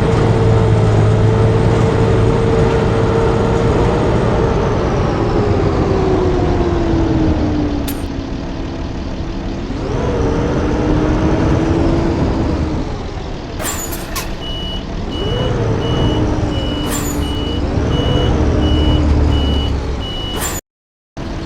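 Blue Bird D3FE school bus's diesel engine running, its pitch dropping and then rising and wavering as it changes speed. A high beep repeats about twice a second through the second half, with a few short sharp hisses or clicks.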